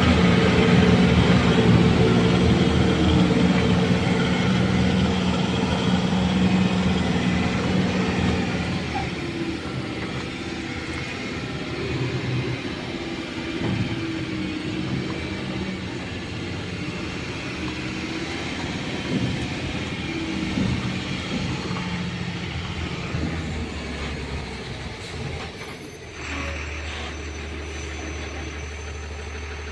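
Heavy diesel machinery running. A loud, steady engine note for the first nine seconds or so gives way to a quieter, uneven mix, and about four seconds before the end a steady low engine hum takes over.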